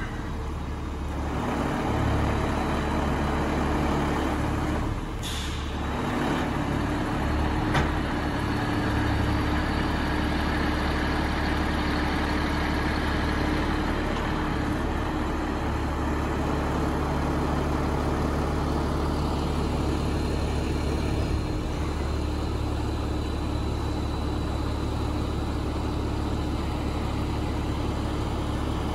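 A truck engine runs steadily, driving the hydraulics of an HMF Z 1643 loading crane as its boom is worked by remote control. There is a short hiss about five seconds in.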